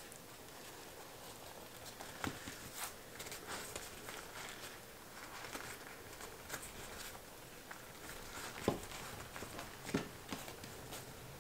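Quiet hand-work with food: soft rustling and a few light knocks as filled tortillas are rolled up into breakfast burritos on a countertop.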